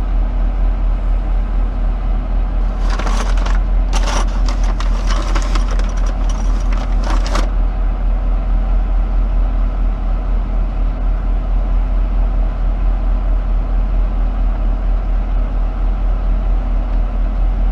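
Vehicle engine running with a steady low rumble heard from inside the cab. From about three seconds in to about seven and a half, a stretch of rustling, scraping noise sits on top of it.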